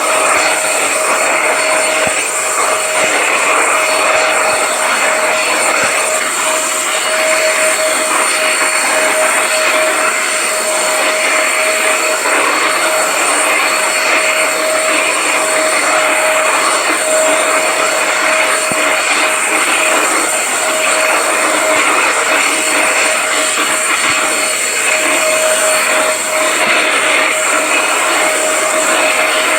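Electric vacuum cleaner running steadily: an even rush of air with a constant whine from the motor, unchanging throughout.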